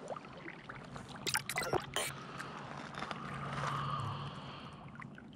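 Water splashing and trickling against a fishing kayak's hull. A few sharp knocks come between about one and two seconds in, and the splashing swells louder a little past the middle.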